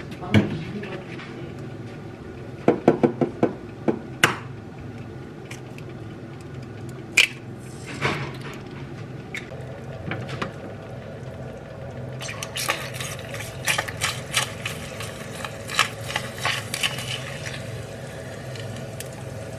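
Eggs cracked into a ceramic frying pan and frying: a handful of sharp knocks around three to four seconds in, then a crackling sizzle that grows denser about twelve seconds in.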